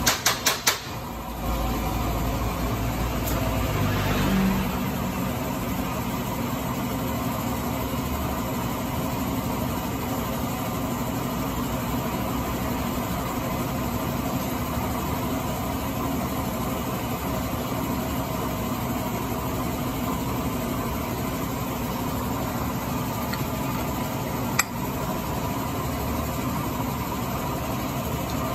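A steady engine-like drone, with a quick run of sharp metallic clinks at the start and a single sharp click near the end, as metal parts and tools are handled.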